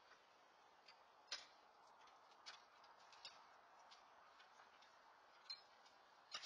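Near silence: a faint steady hiss with about half a dozen faint, irregular clicks.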